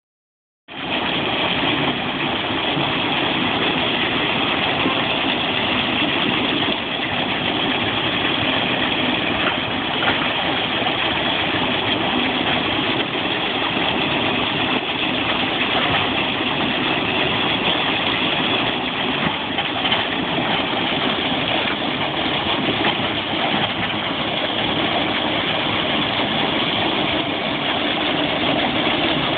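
Houle 4-inch electric liquid-manure pump running steadily, its motor and outlet nozzle churning dairy slurry in a concrete pit.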